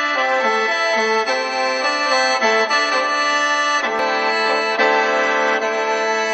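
Khaen, the bamboo free-reed mouth organ, playing a quick melody over a steady drone, settling onto a fuller held chord about two-thirds of the way through.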